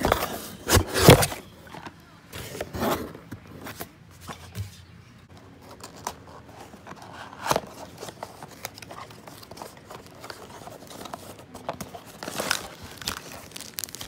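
A cardboard box being opened and handled by hand: cardboard and packaging scrape, tear and rustle in short bursts, loudest in the first second or so.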